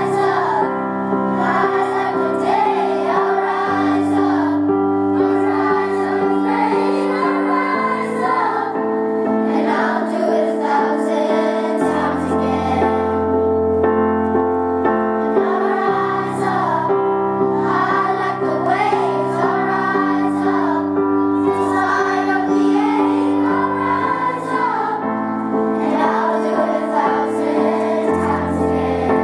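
Children's choir singing in unison over an accompaniment of sustained chords that change about every four seconds.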